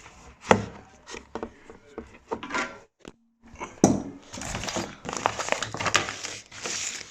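Handling noises of tools and plastic being moved about: scattered knocks and crinkling, with two sharper knocks, one about half a second in and one just before four seconds.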